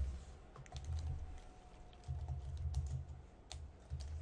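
Typing on a computer keyboard: an irregular run of keystroke clicks with dull low thuds beneath them.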